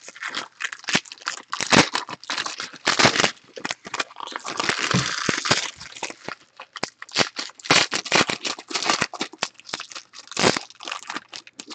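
Foil trading-card pack wrappers crinkling and crackling as they are handled and opened by hand, with many small irregular crackles and clicks.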